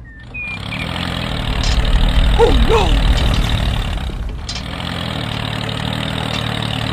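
Small engine of a DIY mini tractor picking up about half a second in, running loudest for a couple of seconds, then settling to a steady run.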